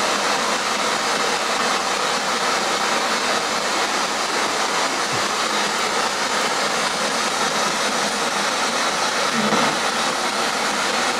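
Spirit box scanning through radio frequencies, giving out a steady hiss of static.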